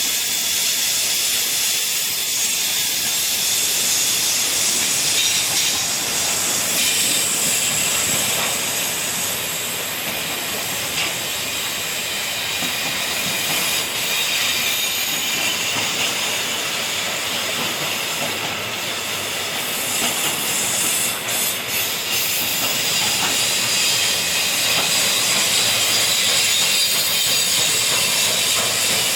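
A train rolling past on the track: a steady, high hiss of steel wheels on the rails, with faint squealing tones running through it.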